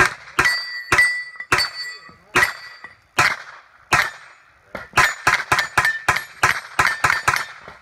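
Pistol-caliber carbine firing a string of shots at steel targets, the steel plates ringing with a short metallic clang after hits. The shots come spaced about half a second to a second apart at first, then a rapid run of about ten from five seconds in.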